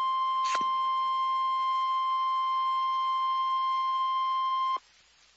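Emergency Alert System attention signal: a loud single-pitch alarm tone of the kind NOAA Weather Radio sends (1050 Hz), held steady, with a short click about half a second in, then cutting off suddenly near the end. It marks the start of a warning message, here a fire warning.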